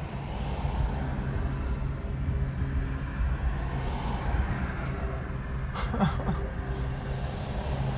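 Propeller engine of an aerobatic display plane droning steadily over a low outdoor rumble.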